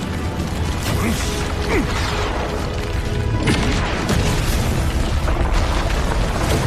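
Dense battle sound effects: continuous mechanical whirring and clanking with booms, over background music.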